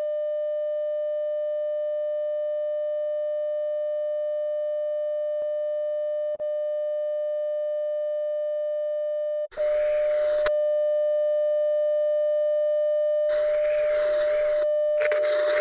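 Steady electronic test tone, as played with TV colour bars, cutting out for an instant about six seconds in. From about nine and a half seconds in it is joined three times by bursts of wavering TV static hiss.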